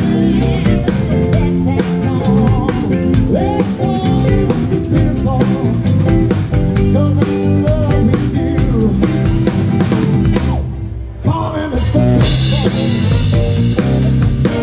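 Live band playing, with the drum kit loud and close: snare rimshots, bass drum and cymbals over the band's instruments. The drums stop for about a second around two-thirds of the way in, then come back with a cymbal crash.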